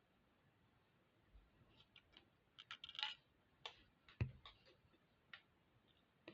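Small metallic clicks and ticks of jewellery pliers working fine craft wire, with a quick cluster of ticks about three seconds in and a duller knock just after four seconds.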